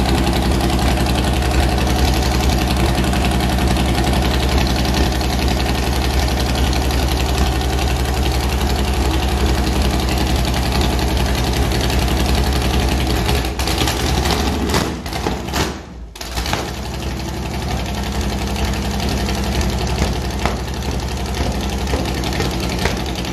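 Carbureted 355 small-block Chevy V8 with open long-tube headers, idling. About 14 seconds in it stumbles and nearly dies, then picks back up and keeps running.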